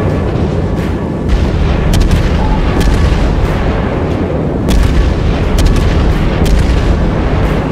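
Wind buffeting the camera microphone: a loud, wavering low rumble, with sharp ticks about once a second.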